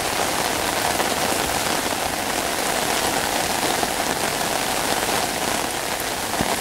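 Steady rain falling on wet pavement and foliage: a constant hiss with a few louder drops standing out.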